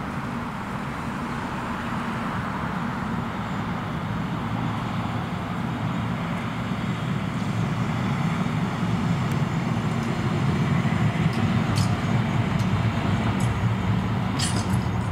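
A D1-class Siemens Combino tram running along the track, growing steadily louder as it approaches and passes, mixed with road traffic. A few sharp clicks come near the end.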